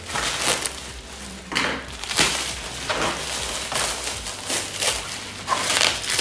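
Plastic packaging and bubble wrap crinkling and rustling in a run of short bursts as it is pulled and torn off a large parcel by hand.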